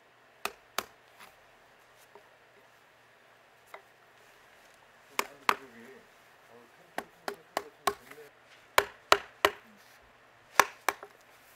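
Round wooden mallet striking a carving chisel as it pares wood from a log being carved into a jangseung post: hollow knocking 'tong-tong' strokes, likened to a moktak, coming in irregular groups of two to four with short pauses between.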